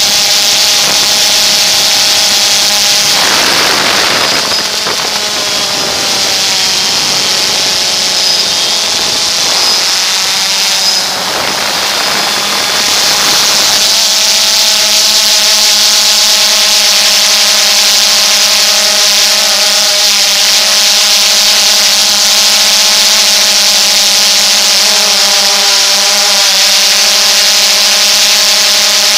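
DJI Phantom 2 quadcopter's motors and propellers running steadily as it hovers, heard from on board as a loud whine of several steady tones over a strong high hiss. For a stretch starting about three seconds in, the whine wavers and shifts in pitch, then settles again.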